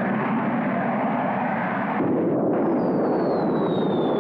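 Cartoon sound effect: a steady rumbling noise that swells about halfway through, with a thin whistle that starts soon after and falls steadily in pitch.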